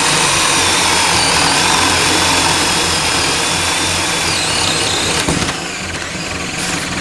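Two cordless drills, a Bosch 12-volt GSR12V-140FC and a DeWalt, running at full speed together, each boring a 3/4-inch spade bit through a wooden board, with a steady motor whine over the bits cutting wood. About five and a half seconds in, the DeWalt breaks through and stops, and the Bosch runs on alone, quieter.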